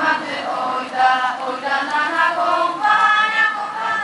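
A choir of school students singing a Polish patriotic song together, in long held notes.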